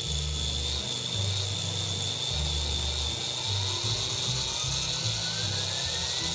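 MJX F-45 RC helicopter's brushless motor spinning the rotor up on the ground: a steady high electric whine, with a second tone rising in pitch through the second half as the rotor gathers speed. Background music plays underneath.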